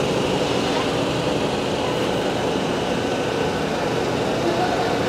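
Steady running of a large truck's diesel engine at idle, an even drone with no change in pitch.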